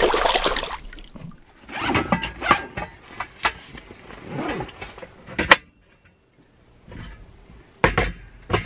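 Water splashing as hands rinse a fish fillet in a lake, then handling noises as a Tembo Tusk skottle stove is unpacked and set up: fabric case rustling, sharp clicks, and two hard metal clunks near the end as its tripod legs are set down.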